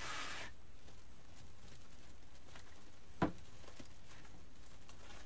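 Faint rustling of ribbon and deco mesh being handled by hand, with a brief rustle at the start and one sharp tap about three seconds in, over a low steady room hum.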